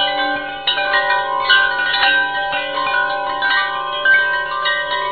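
Intro jingle of chime tones: bell-like notes struck one after another, each ringing on and overlapping the others.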